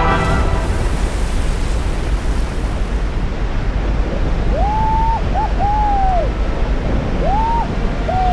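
Steady roar of glacial meltwater pouring down the ice waterfall. About halfway through, and again near the end, come a few clear hooting calls, each rising and then falling.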